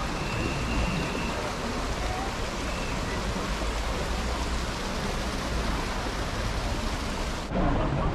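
Steady rushing hiss of water running and splashing in a narrow concrete stream channel. It cuts off abruptly about seven and a half seconds in, leaving a duller background.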